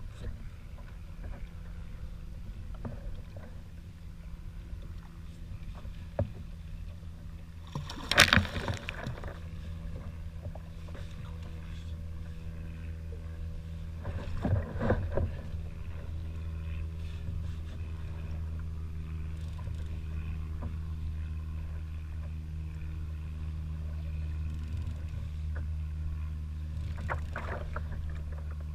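Water lapping against a Wilderness Systems Tarpon 120 sit-on-top kayak's hull with a steady low rumble, broken by two louder splashy bursts about eight and fifteen seconds in and a smaller one near the end.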